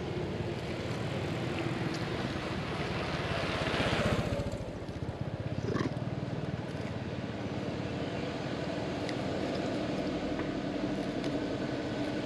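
Road traffic: a motorbike engine hums steadily and swells as it passes, loudest about four seconds in.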